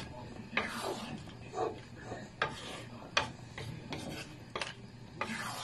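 A spatula scraping and stirring through a wet coconut-milk stew of shrimp, squash and long beans in a pan, in uneven strokes about once a second.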